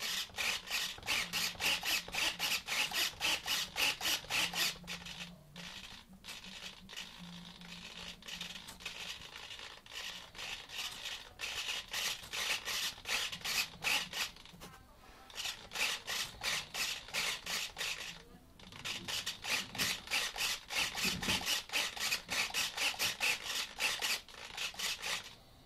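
Small hobby micro servos whirring through quick, jerky back-and-forth strokes, about five a second, in long runs broken by a few short pauses.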